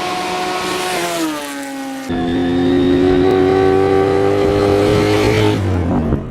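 Motorcycle engine running on the road. Its note drops as the bike slows about a second in, then after an abrupt cut it holds a louder, slowly rising note that falls away near the end.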